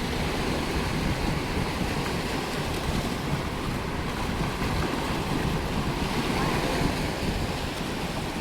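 Steady wind buffeting the microphone, with surf washing on the beach behind it.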